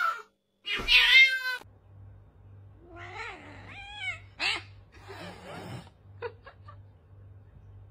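A cat gives one loud, drawn-out meow about a second in, followed by quieter wavering cat calls that rise and fall in pitch over a low steady hum.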